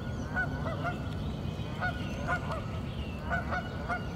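Geese honking repeatedly, short honks coming roughly two a second.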